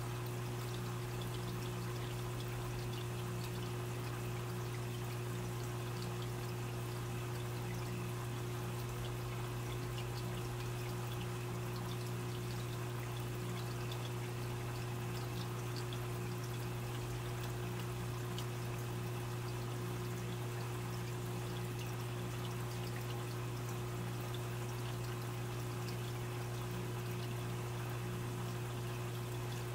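Aquarium filter running: water trickling and splashing steadily over a low, constant hum from the filter motor.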